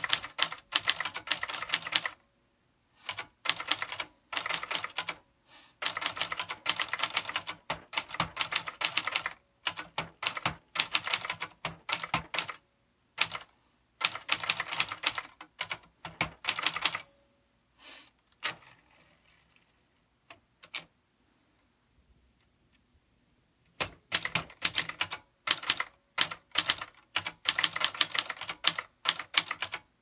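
1969 Remington 333 portable manual typewriter being typed on: rapid key and typebar strikes in bursts, with short pauses between runs. About seventeen seconds in, a short bell ring sounds, then the typing stops for several seconds before starting again.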